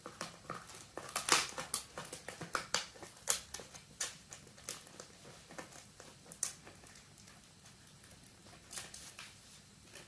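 Italian greyhound chewing a dried pig ear: a run of sharp crunching and tearing clicks, thick for the first few seconds, then thinning out, with another short bout near the end.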